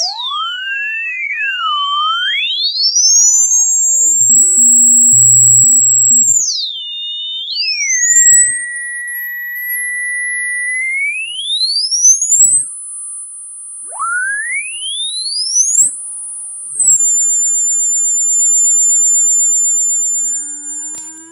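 Electronic rodent-repellent sound: pure whistling tones, one or two at a time, sliding up and down in pitch through the high range, with a brief low buzz about five seconds in. For the last few seconds it settles into steady high-pitched tones.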